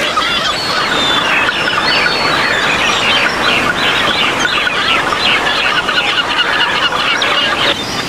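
Many birds calling at once in a dense, overlapping chatter of short calls, with a brief break near the end.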